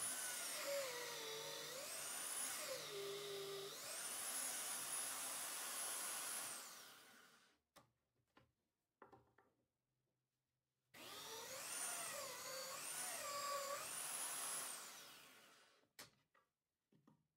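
Drill press running, its motor whine dipping and recovering in pitch as the bit is fed into stacked plywood discs and eased off. It cuts first with a hole saw and then with a twist bit, in two runs of several seconds with a few light knocks of handling between.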